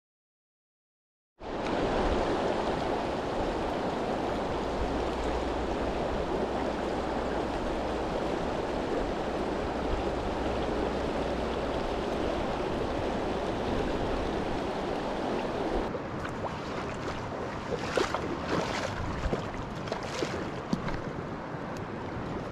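Steady rushing of a fast-flowing river, starting after a second or so of silence. About two-thirds of the way in it turns slightly quieter, with scattered sharp clicks and knocks over it.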